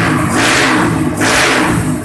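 Stroked-up 200cc Honda CB motorcycle engine revved in quick throttle blips, each a surge of loud exhaust noise, about two a second.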